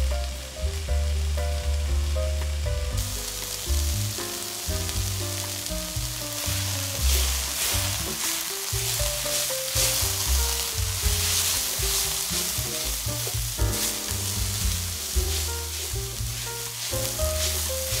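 Sliced red pepper, carrot and onion sizzling and frying in a stainless steel sauté pan while a spatula stirs and scrapes them. The sizzling comes in about three seconds in and is loudest in the middle, over background music with a melody.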